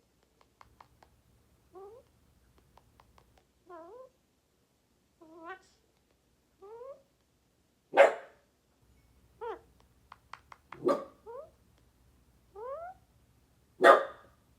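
A pet parrot calling repeatedly: short rising calls about every second and a half, with three much louder shrill screeches in the second half.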